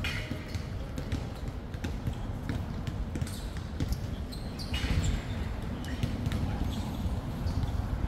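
Outdoor street ambience: a steady low rumble with irregular dull thumps and light clicks, a little busier about five seconds in.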